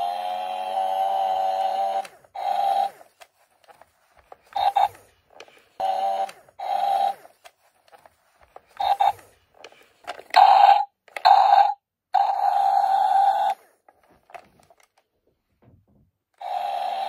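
A steady-pitched tone sounding in on-off beeps of uneven length: some short, some held for a second or more, with silent gaps between.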